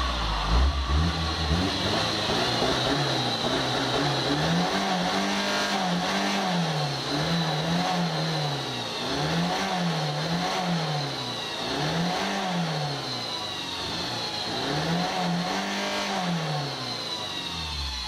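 Older Mercedes-Benz Vito turbo-diesel van heard at its aftermarket exhaust tailpipe. It starts on a deep low rumble, then is revved in quick blips, about one a second, each rising and falling back. A faint high turbo whistle runs over the engine note.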